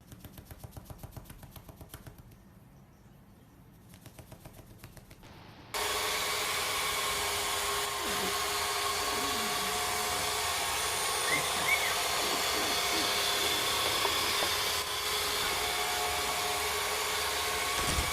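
Faint, quick rhythmic ticking, then about six seconds in a steady whir and rush of air, like a small electric blower or fan motor, with a couple of faint chirps partway through.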